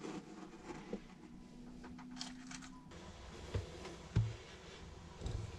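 Soft handling noises from fitting a new rubber impeller into a marine diesel's raw-water pump, with three small knocks in the second half.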